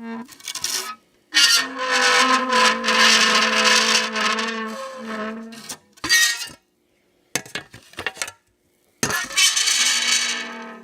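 Metal license plate pressed onto dry ice, screeching and squealing as the sublimating ice makes the plate vibrate. It comes in several bursts, the longest lasting about four seconds, each holding a fairly steady pitch with a hissy edge, separated by dead-silent gaps, with a few short clicks and chatters in the middle.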